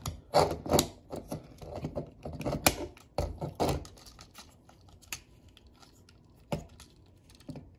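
Hard plastic parts of a Transformers Legacy United Leader Class Sandstorm action figure clicking and snapping as they are folded and pressed into place. There is a quick run of clicks over the first few seconds, then only a few single clicks.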